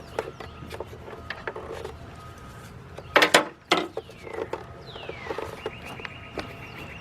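Hand tools working on the timing belt cover bolts: scattered ratchet-like clicks and small metal taps, with two loud clatters a little after three seconds in.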